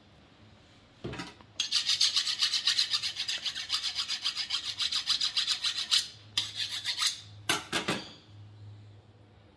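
Kitchen knife being sharpened with fast, even rasping strokes of metal on metal, about six a second, for roughly four seconds, then two shorter runs of strokes.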